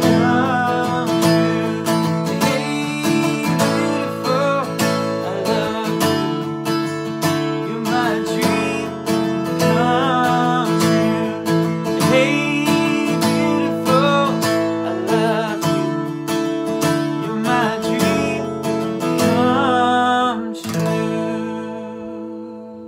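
Acoustic guitar strummed in a steady rhythm as the song's closing instrumental. A final strum near the end is left to ring out and fade.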